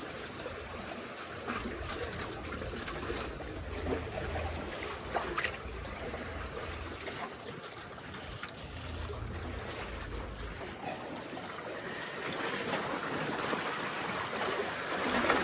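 Seawater sloshing and trickling among the concrete tetrapod blocks of a breakwater. Wind rumbles on the microphone in gusts about four seconds in and again around nine to ten seconds in, and there are a few faint clicks.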